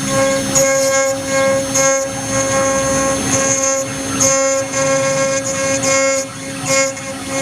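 CNC router spindle running with a steady whine while the engraving bit cuts brass or copper, a higher pitched cutting squeal coming and going every second or so as the tool bites into the metal.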